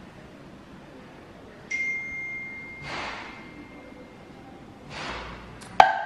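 A clink against a glass measuring jug about two seconds in, leaving a clear ringing tone that fades over about two seconds. Soft scraping swishes follow, and there is a sharp click near the end.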